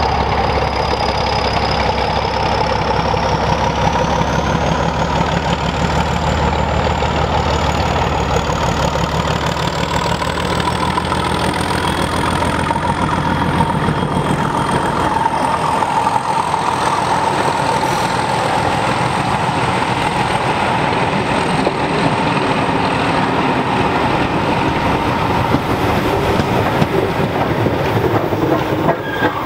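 Class 31 diesel locomotive's English Electric engine running as it approaches and passes. About halfway through the engine sound drops away, leaving the steady rumble and rattle of passenger coaches rolling over the rails.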